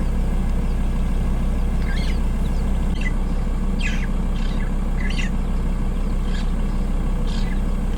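A vehicle engine running with a steady low hum, while a bird gives short, falling chirps about once a second.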